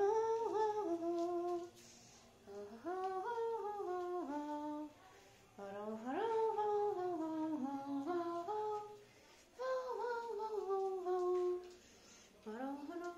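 A person humming a tune in short phrases of a few held notes, with brief pauses between phrases.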